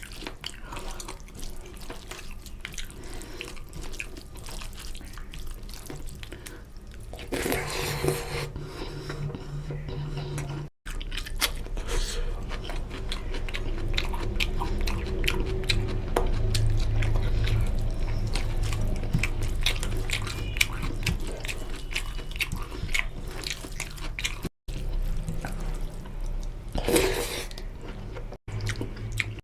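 Close-up eating sounds: wet chewing, lip smacks and squelching of chicken curry, rice and gravy, made up of many small clicks. It cuts off abruptly three times.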